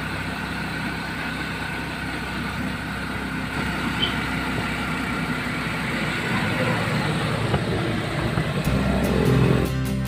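Motor tricycle running on the road, heard from inside its covered sidecar: a steady engine and road rumble that grows a little louder over the last few seconds.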